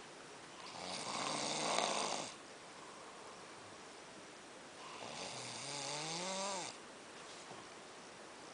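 A man snoring: two long snores about four seconds apart, the first rough and rattling, the second with a pitched tone that wavers up and down.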